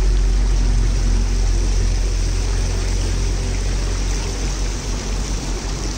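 Water gushing steadily from a spring's spout into a shallow pool and splashing over a bare foot held under the jet, with a heavy low rumble underneath.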